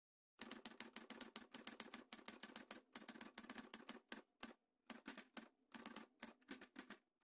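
Typewriter sound effect: quiet, rapid key clicks, about six a second, with a few short pauses.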